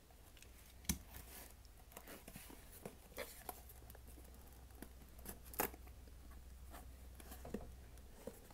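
Fingers working at a glued cardboard shipping box to pry it open: faint scraping and rubbing on the cardboard with scattered taps, and a sharp click about a second in and another a little past halfway.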